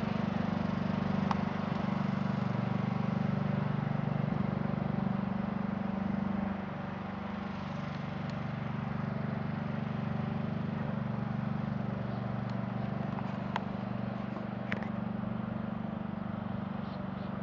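Riding lawn mower's small engine running steadily as it drives along, dropping a little in level about six seconds in.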